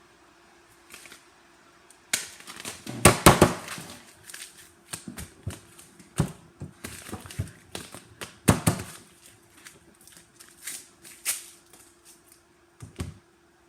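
Paper rustling and crinkling with sharp taps and clicks in irregular bursts, as a paper toy phone and its paper packaging are handled, over a faint steady hum.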